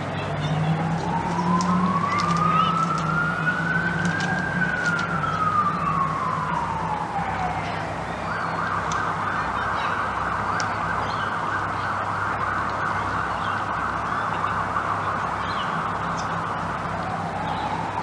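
Emergency vehicle siren: one slow wail rising for about four seconds and falling for about four, then switching to a fast yelp that runs on, with a new slow rise starting near the end.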